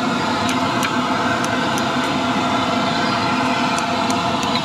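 A steady engine drone with a few level tones running under everything, with faint sharp snips of scissors cutting fried batagor and siomay.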